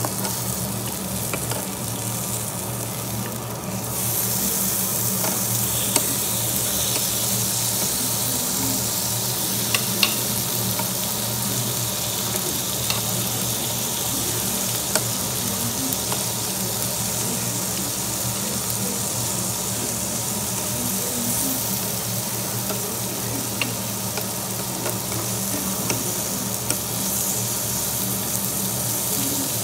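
Marinated duck meat sizzling on a hot grill plate, with a few light clicks of metal tongs turning the pieces. The sizzle gets louder about four seconds in.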